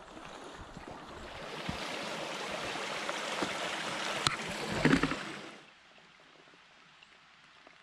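Small shallow stream trickling and rushing over stones in a steady wash of water, with a short loud burst of knocks about five seconds in. It cuts off suddenly to a faint, quiet woodland hush.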